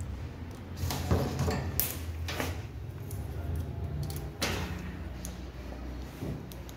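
Handling noise from the multimeter's probe leads being moved about: a few scattered clicks and light knocks over a low steady hum. No continuity beep is heard yet.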